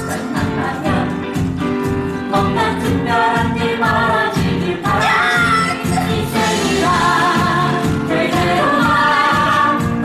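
Stage musical number: a group of voices singing over band accompaniment with a steady beat, the singing growing fuller a few seconds in.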